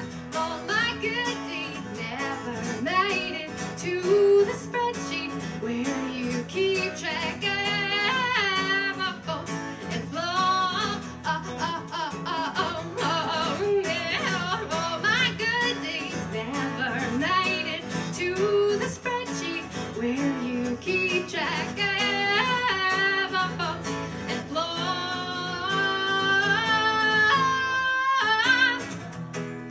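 A woman singing over a strummed acoustic guitar in a live performance, her voice wavering with vibrato and holding long notes near the end.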